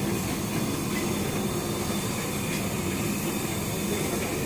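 200 kg-per-hour puffed-rice (muri) machine running: a steady hum and rumble from its rotating steel drum, with the rattle of puffed rice tumbling out of its mouth.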